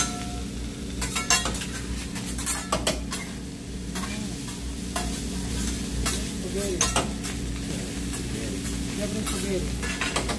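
Food sizzling on a hot steel teppanyaki griddle while metal spatulas scrape and tap the surface again and again, turning fried rice. A steady low hum runs underneath.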